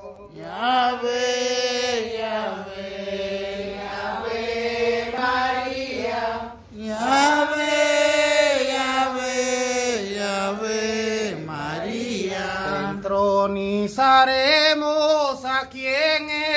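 A slow hymn to the Virgin Mary sung in long, drawn-out phrases of several seconds each, the pitch bending and gliding between held notes, with a short break for breath about seven seconds in.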